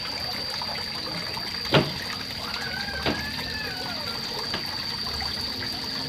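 Water running and trickling into a fish pond. Two sharp clicks cut through it, the louder one about two seconds in, the other about a second later.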